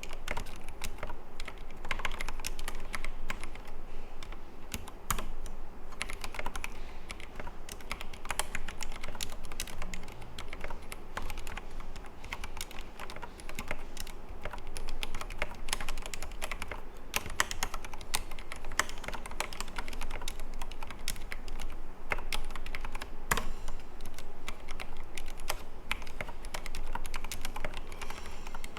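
Steady, continuous typing on a Logitech G Pro X mechanical keyboard modded with Gateron Black linear switches lubed with Krytox 205g0, with clipped and lubed stabilizers. Keystrokes follow each other quickly and irregularly, with no speech.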